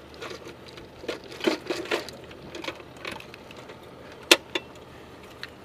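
Metallic clicks and clinks of a linked belt of .50-calibre rounds being handled while it is loaded into an M2 heavy machine gun, with one louder click a little past four seconds.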